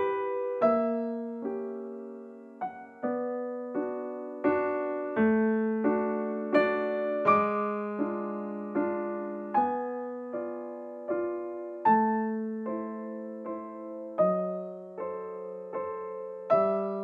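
Calm background piano music: notes and chords struck at a slow, even pace, each fading away before the next.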